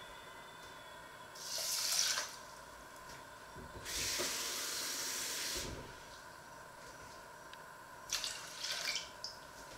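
Kitchen tap running into a mug at the sink in two goes: a short swelling rush about a second and a half in, then a steadier flow from about 4 s to nearly 6 s. Near the end, water from the mug is poured into a stainless steel saucepan, a short uneven splashing.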